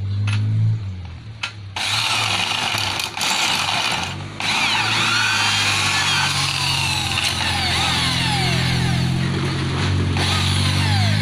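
Hand-held electric drill starting up and boring through the rubber sole of a pole-climbing shoe on its steel frame. The steady motor hum runs under a loud scraping noise of the bit cutting, which begins about two seconds in and breaks off briefly a few times.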